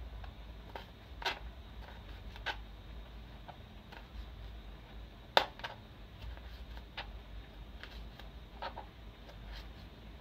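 A kitchen knife slicing tomato on a plastic cutting board: irregular sharp knocks of the blade on the board every second or two, the loudest about five seconds in.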